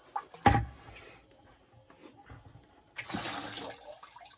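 A single sharp knock about half a second in. Around three seconds in, water rushes out of a big blue whole-house filter housing into a bucket for under a second: the housing was still full of water.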